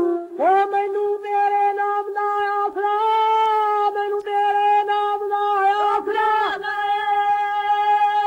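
Dhadi folk singing played from an old shellac 78 rpm record: a single voice holds long, steady notes, broken by a few short pauses between phrases.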